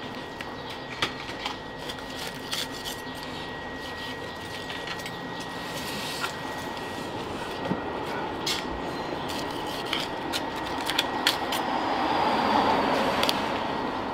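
A knife cutting through a tuna head on a wooden cutting board gives scattered sharp clicks and knocks over a steady background hum with a thin high whine. A broader swell of noise rises near the end.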